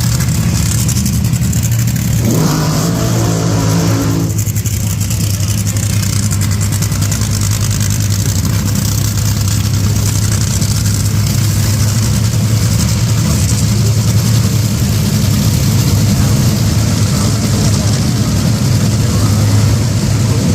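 Top fuel dragster's supercharged nitromethane V8 running at idle after being fired up, a loud steady low rumble.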